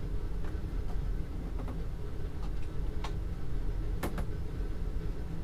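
Steady low room hum with a few faint scattered clicks, the sharpest about four seconds in.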